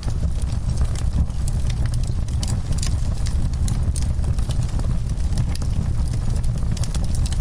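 Wood fire crackling, with many small sharp pops and snaps, several a second, over a steady low rumble of the burning.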